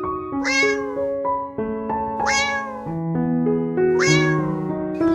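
A cat meowing three times, roughly two seconds apart, over gentle background music of sustained notes.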